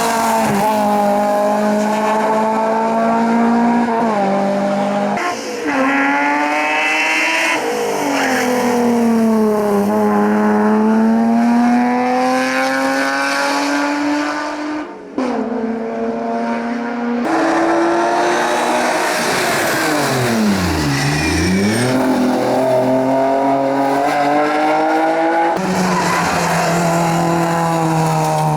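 Hillclimb race car engines revving hard, the pitch climbing and dropping again and again through gear changes, with several cars heard in turn. Around two-thirds of the way through, one engine's pitch falls steeply and then climbs back up.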